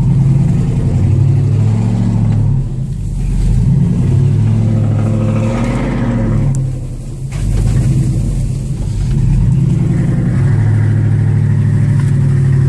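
Chevy 2500 pickup's 6.0-litre V8 revving under load as the truck powers up a rough off-road trail, heard from inside the cab. The engine eases off briefly twice, about two and a half and seven seconds in, then pulls again.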